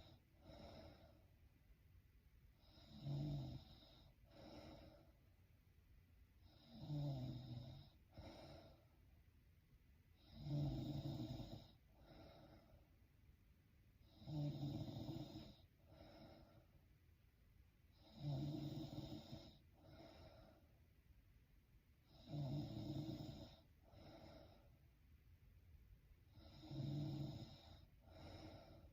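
A sleeping woman snoring in a slow, even rhythm, about one breath every four seconds: each breath is a longer, stronger snore followed by a short, weaker one.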